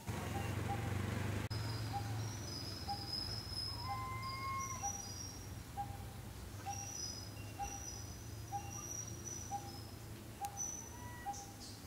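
Wild birds calling: one repeats a short low note about every two-thirds of a second, while others give high thin whistles and chirps. Under them runs a low steady rumble, strongest in the first couple of seconds.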